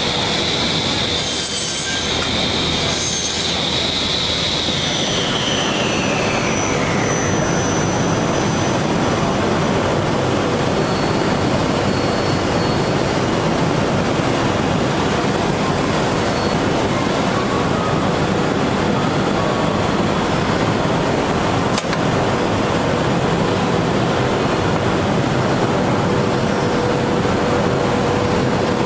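Tenoning machine for 45° door-frame joints: its circular saw blades give a high whine that, a few seconds in, glides down in pitch and fades as the blades spin down. A loud, steady mechanical rush continues underneath.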